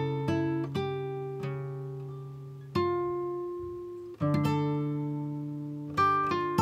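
Background music on acoustic guitar: plucked notes and chords that ring out and fade, with new chords struck about three, four and six seconds in.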